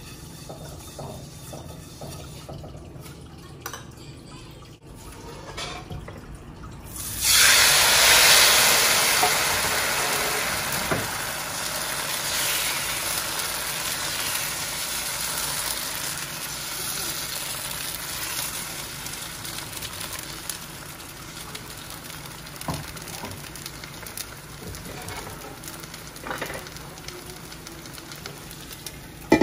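Banh xeo beer batter hitting a hot oiled wok about seven seconds in: a sudden loud sizzle that slowly dies down to a steady frying hiss as the crepe cooks.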